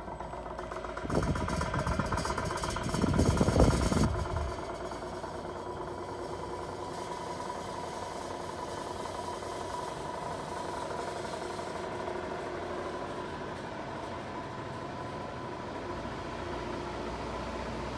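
Duster 2000 unit running with a steady mechanical hum and whine: the noise this new unit has started making. From about one to four seconds in it turns louder and rougher, then settles back to the steady hum.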